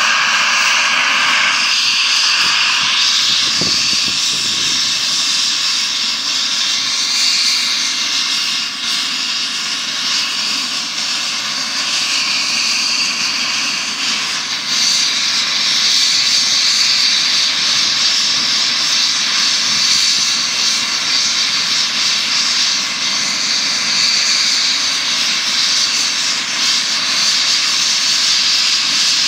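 Eurocopter EC135 helicopter's twin turbine engines and rotor running on the ground before take-off: a loud, steady high-pitched turbine whine.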